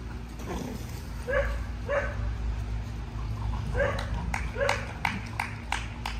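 A dog barking: four short barks in two pairs, followed by a run of sharp clicks near the end.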